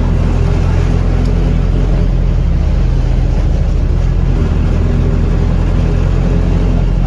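Mitsubishi bus diesel engine running under way, heard from inside the passenger cabin as a steady low drone.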